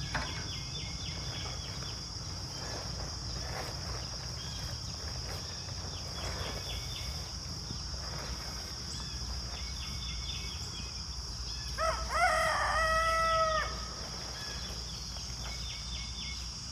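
A rooster crows once, a single call about two seconds long, about twelve seconds in. Faint short chirps recur over a steady high-pitched hum.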